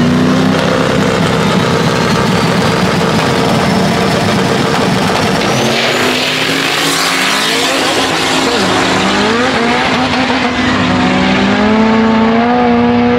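Turbocharged Chevy S10 drag truck on a test pass: the engine is held at steady revs on the line with a high turbo whine rising, then it launches about six seconds in with a burst of tire noise and accelerates away, the engine note climbing again and again as it shifts up through the gears.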